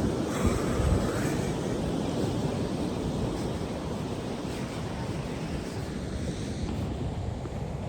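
Steady rushing of wind and surf, with wind buffeting the microphone.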